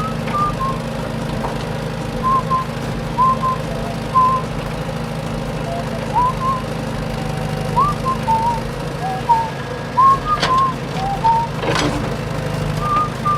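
A whistled tune of short, mostly upward-gliding notes over a steady low hum, with two sharp clicks near the end.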